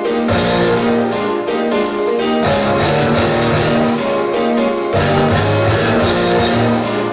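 Instrumental pop music with guitar and drums.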